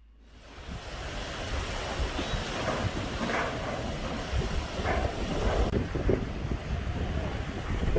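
Hurricane wind rushing in gusts and buffeting the microphone, with a heavy low rumble.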